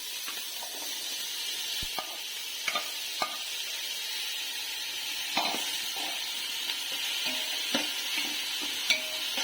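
Parboiled vegetables frying in hot oil in a wide pan: a steady sizzle, with a spatula stirring and scraping against the pan in short scattered clicks.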